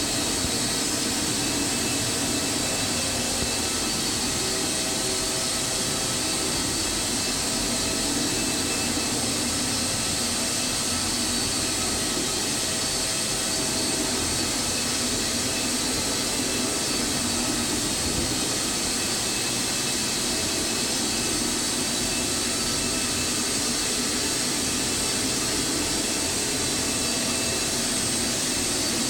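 Rotary carpet-cleaning extractor running while working the carpet: vacuum suction through the hose with a steady rushing noise and a high-pitched whine.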